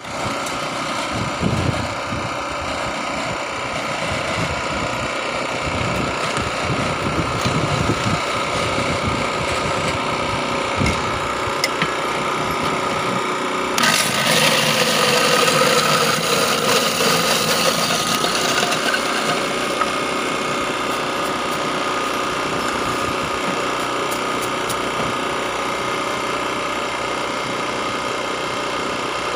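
Honda portable generator running steadily. From about 14 s to about 19 s an electric ice shaver grinds a block of ice into shaved ice for ice gola, a louder, hissing grind over the generator.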